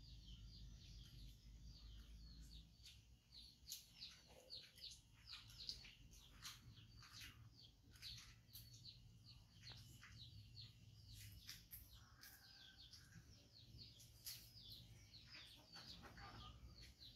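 Faint chirping of small birds: a long run of quick, high chirps, several a second, thinning out about two-thirds of the way through.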